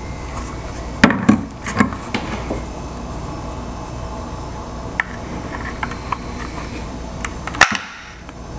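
Plastic casing of a Ryobi 40V lithium-ion battery pack clicking and knocking as it is handled and turned over in the hands, over a steady low hum. A cluster of knocks comes about a second in, with a few light ticks later and a sharp click near the end.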